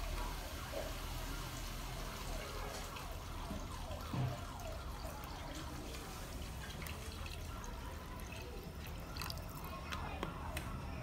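Water glugging as it pours from a plastic bottle into a pot of hot broth: a quick run of falling gurgles over a low steady hum, with one thump about four seconds in and small plastic clicks near the end.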